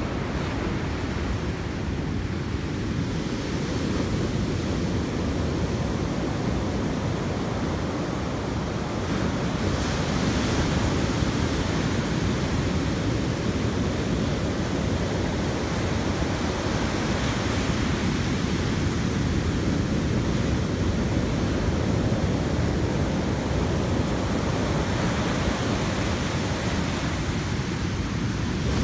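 Pacific Ocean surf breaking and washing up a sand and pebble beach, a steady rush of waves.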